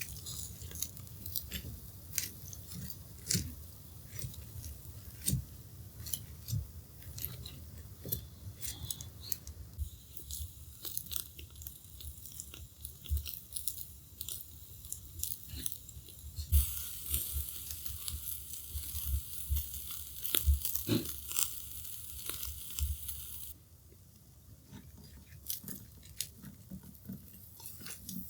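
Charcoal crackling in a hibachi: scattered sharp pops and ticks. For several seconds after the middle, a steady hissing sizzle of atsuage grilling over the coals joins in, then stops abruptly.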